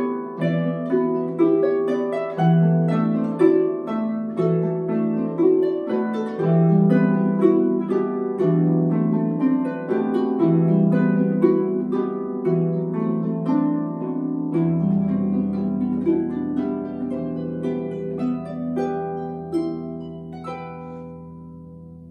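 Two Celtic harps played together as a duo, plucked notes ringing over one another, with a low bass note held from about two-thirds of the way in. Toward the end the notes thin out and fade as the piece closes.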